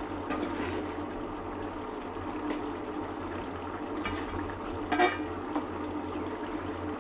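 Egg curry simmering in a pot, a steady bubbling with a low hum beneath it. One sharp clink about five seconds in.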